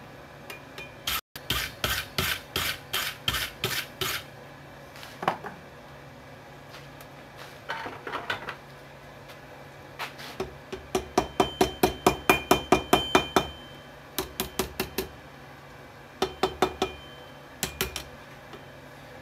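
Hammer blows on a steel anvil during forging, coming in bursts of quick strikes with pauses between. The longest run is about three blows a second, with the anvil ringing after each blow.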